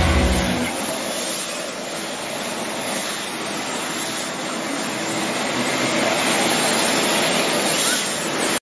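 Electric RC drift cars running and drifting on a smooth indoor track: a steady high whir of small motors and sliding tyres. A rock song breaks off about half a second in.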